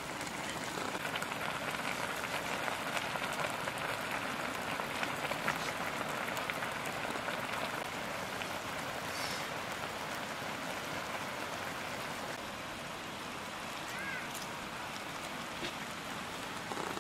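Steady outdoor hiss like rain or running water, with a faint short chirp about fourteen seconds in.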